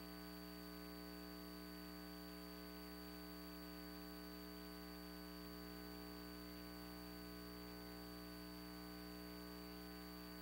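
Faint, steady electrical mains hum with many overtones, and a thin high-pitched whine above it.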